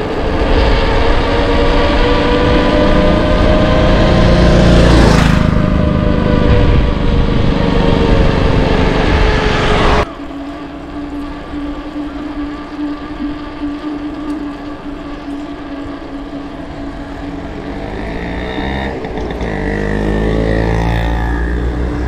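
Motor vehicle engines on a road: one passes close, loudest about five seconds in. The sound drops suddenly about ten seconds in to a steady engine hum, and another vehicle's engine rises and passes near the end.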